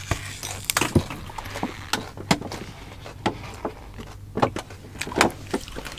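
Close-miked eating of roast suckling pig: chewing and handling the meat, heard as scattered sharp clicks and crunches.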